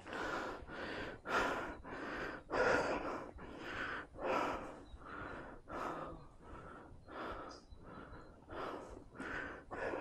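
A hiker panting hard while climbing a steep mountain trail: quick, regular in-and-out breaths, about one or two a second.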